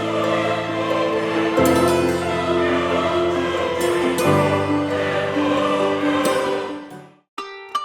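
Background music: sustained chords that change twice and fade out about seven seconds in, followed after a brief gap by plucked string notes just before the end.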